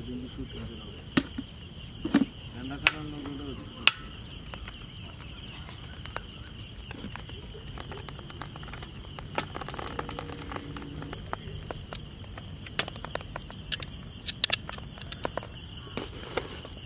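A white cane tapping sharply now and then: several taps in the first four seconds and a cluster near the end. Underneath is a steady high drone of crickets or other insects.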